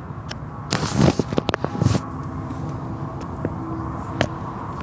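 Automatic car wash running steadily, its hanging cloth strips dragging and slapping over a pickup truck. About a second in comes a brief flurry of sharp slaps and clatter, with a few single clicks later.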